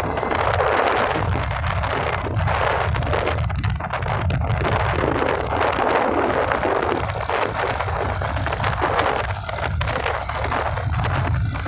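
Wind buffeting the microphone of a phone carried on a moving TVS NTorq scooter, an uneven rushing noise that swells and dips, with a steady low rumble from the ride underneath.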